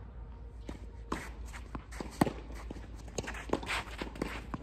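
Footsteps and shuffling of a tennis player walking into position on the court, a run of irregular soft knocks with one sharper knock about two seconds in.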